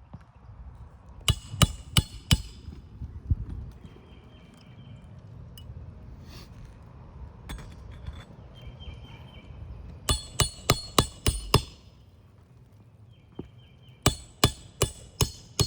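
Hammer driving roofing nails into a replacement asphalt shingle: three quick runs of sharp strikes, about four, then six, then five blows. A faint short high chirp recurs every few seconds between them.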